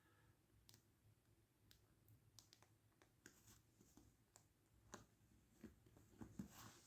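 Near silence with faint, scattered small clicks and taps, about a dozen, a little louder near the end.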